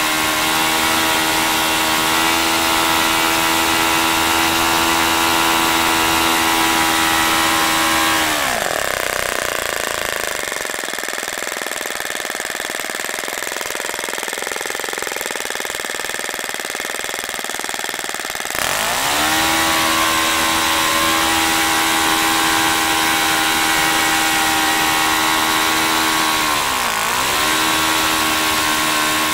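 OS FS-30 Surpass four-stroke glow engine spinning a propeller at full throttle, about 9,000 rpm. About eight seconds in it is throttled back, its pitch falling to a low idle around 2,400 rpm; some ten seconds later it is opened up again and its pitch rises back to full speed, with a brief sag in speed near the end. The engine is running on freshly replaced valve springs.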